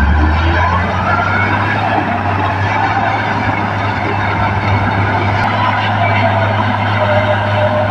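Komatsu D58P bulldozer working, its diesel engine running steadily under load with a low hum, mixed with the noise of the machine and thin whining tones that slide up and down in pitch.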